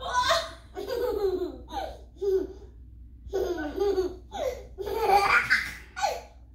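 A one-year-old toddler laughing in a string of short bursts with brief pauses between them.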